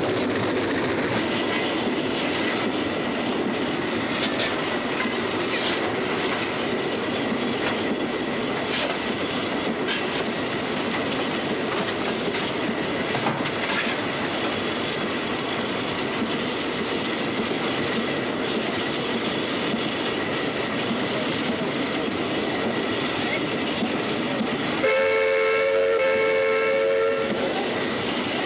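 Steam locomotive and its train running at speed: a steady rushing noise with scattered clicks of wheels over rail joints. About 25 seconds in, the locomotive's whistle sounds one steady note for about two seconds.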